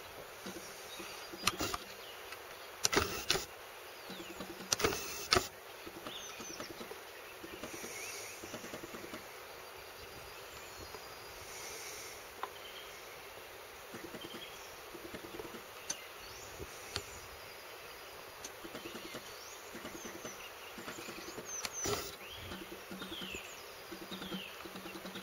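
Outdoor ambience with a steady hiss and faint short bird chirps, most of them near the end. A few sharp knocks stand out above it, the loudest about three and five seconds in and one more near the end.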